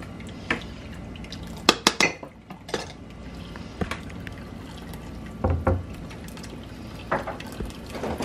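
Spoon and utensils clinking and knocking against a strainer and pot while blended chile sauce is poured and strained into the pot, with liquid sounds. The clinks come irregularly, a dozen or so, over a steady low hum.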